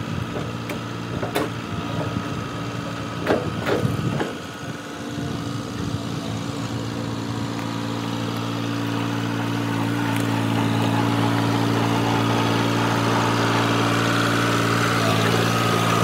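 A John Deere compact tractor engine running steadily, with a few sharp knocks and clatters in the first four seconds. The engine grows louder from about halfway through and holds there.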